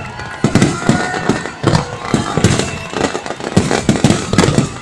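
Fireworks display: aerial shells bursting in a rapid, irregular string of loud bangs, with crackling between them and a few thin whistles.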